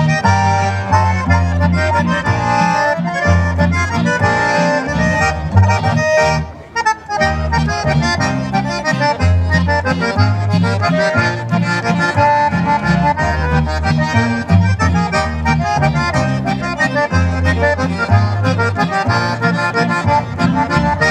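Live band music led by two accordions, with acoustic guitar and a plucked double bass carrying a moving bass line. The music drops out briefly about six and a half seconds in, then carries on.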